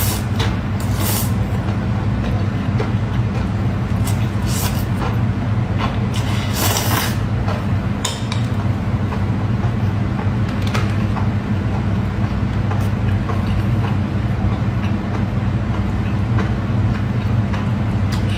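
Close-miked eating of enoki mushrooms: irregular crisp, wet chewing and biting sounds, the clearest about 4 and 7 seconds in, over a steady low hum.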